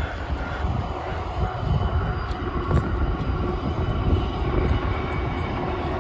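Amtrak Cascades passenger train passing close by at speed: a steady low rumble of wheels on rail with faint steady tones above it, growing louder over the first couple of seconds and then holding.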